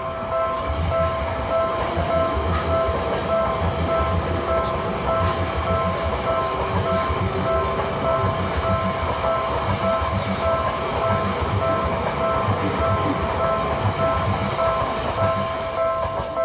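Seibu Ikebukuro Line train passing over a level crossing, its wheels rumbling and clattering over the rails, while the crossing's electronic warning bell rings steadily.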